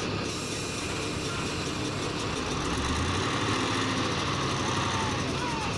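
Heavy diesel engine of earthmoving machinery running steadily, getting somewhat louder around the middle as it takes more throttle.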